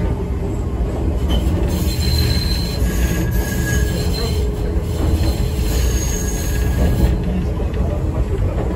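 Enoden electric train running on curving track: a steady low rumble, with thin high-pitched wheel squeals coming and going from about two seconds in.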